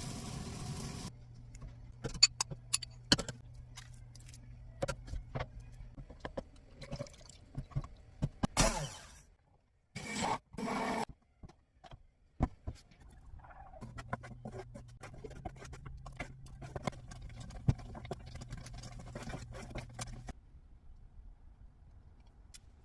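Kitchen utensils clicking and scraping against a dish, in many short separate taps, with a low steady hum under them during two stretches.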